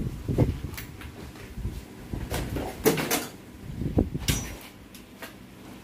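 Knocks, clatter and packaging rustle as a new bicycle frame and its wrapped wheels are handled and set down on a workshop floor. There are several separate sharp knocks, the loudest about three and four seconds in.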